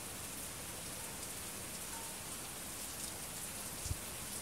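Steady rain falling, an even hiss with scattered ticks of single drops landing close by. A brief low thump comes near the end.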